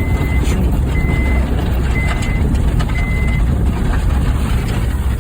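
Honda Fit driving over rough ground, a steady low rumble of engine and jolting, with a few knocks. An electronic beep sounds once a second and stops about three and a half seconds in.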